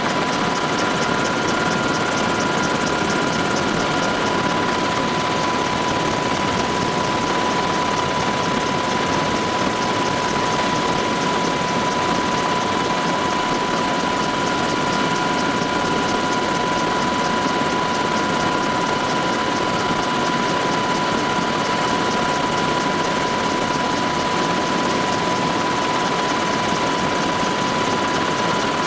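Military helicopter in steady flight, heard from on board: constant rotor and engine noise with a steady high whine running through it.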